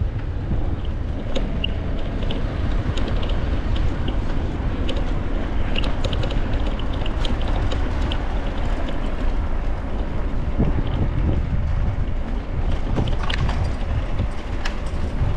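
Wind buffeting the microphone over the rumble of bicycle tyres rolling on brick paving, with scattered light clicks and rattles.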